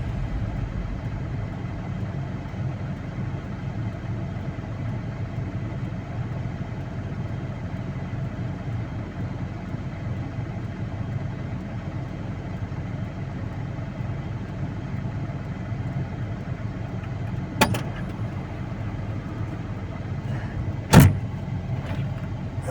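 A vehicle engine running steadily with a low hum. Two sharp knocks come near the end.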